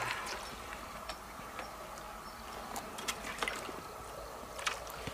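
Light wet splashes and scattered short clicks as a freshly caught red carp is handled at the water's edge, over a faint steady trickle of water.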